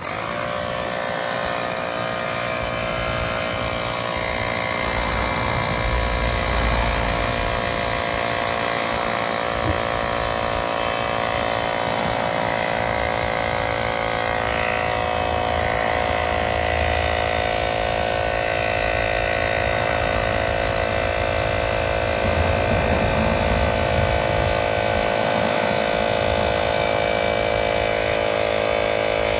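Small portable electric tyre pump switching on and running steadily as it inflates a bicycle inner tube, a constant motor hum that gradually gets a little louder as the tyre fills.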